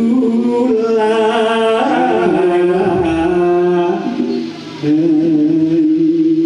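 A single voice singing long, drawn-out notes with a wavering pitch through a stage microphone and PA, stepping up in pitch about two seconds in and breaking briefly a little past four seconds before another long held note.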